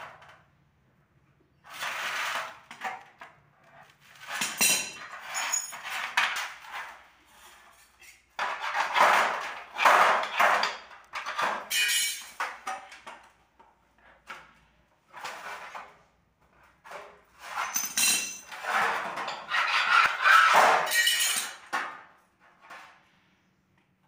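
Hand tin snips cutting thin galvanised steel sheet in several spells of snipping a few seconds long, with clinks and rattles from the flexing sheet.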